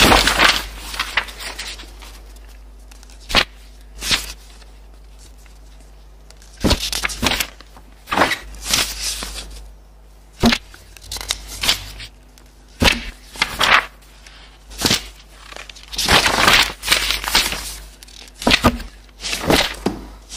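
Paperback book pages being turned and flicked in irregular bursts, some quick single flips and some longer rustling riffles, layered as an experimental music composition, over a faint steady low hum.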